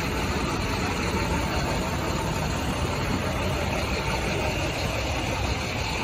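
Steady city street noise, a continuous low rumble of the kind made by road traffic, heard while walking along a sidewalk.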